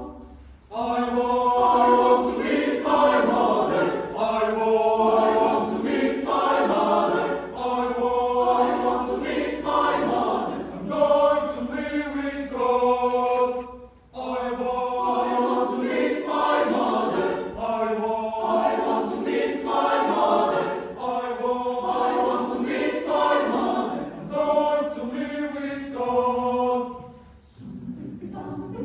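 Mixed choir of men and women singing a spiritual a cappella, in loud, strongly rhythmic phrases. The singing comes in about a second in, breaks off briefly about halfway through, and turns softer near the end.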